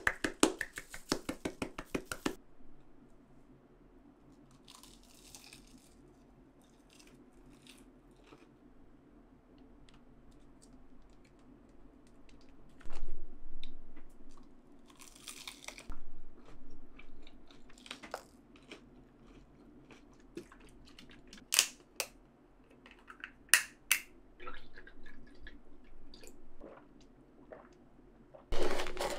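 A hand shaker rattling in rapid clicks as powder is shaken over breaded hot dogs for about two seconds. Then scattered crunching bites and chewing of the fried hot dogs, with a few sharp handling clicks and another burst of clicking near the end.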